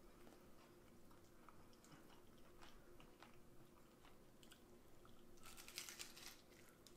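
Faint mouth sounds of a person chewing stewed birria meat, with a brief, louder wet bite into a piece of consommé-soaked meat a little before the end.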